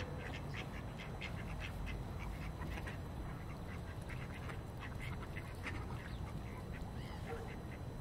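Ducks on the river quacking in short, frequent calls over a steady low rumble.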